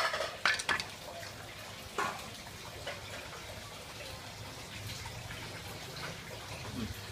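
A few light knocks and clatters as cut roast chicken is handled on a wooden chopping block and plate, within the first two seconds. After that, a faint steady low hum with a light hiss.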